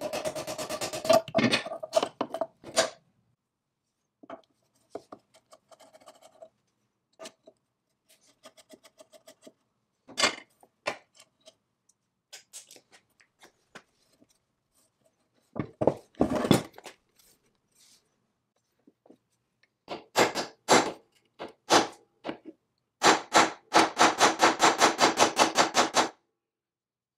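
Hand work on the cast-iron parts of a Foley Automatic Filer: scattered metallic clicks, clinks and knocks as locking pliers grip a pin and rods and springs are fitted. Near the end comes a fast run of even ticks, about eight a second, for about three seconds.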